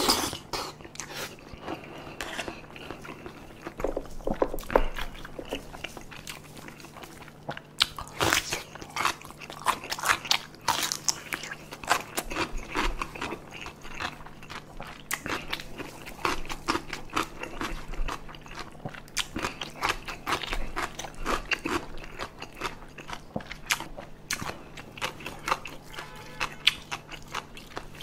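Close-up chewing and biting of spicy tteokbokki with rice cakes, fish cakes and boneless chicken feet in thick sauce: a steady run of short, wet clicking mouth sounds.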